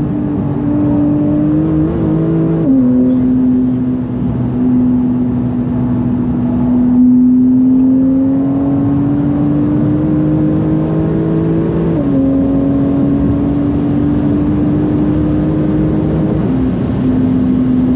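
Porsche 991.2 GTS twin-turbo flat-six with bigger turbos, pulling hard in the high gears. The engine note climbs slowly and drops sharply at upshifts about three seconds in and again about twelve seconds in.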